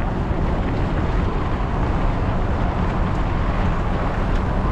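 Wind rushing over the microphone of a bike-mounted camera, over the steady rolling noise of mountain bike tyres on a gravel dirt path, with a few faint clicks.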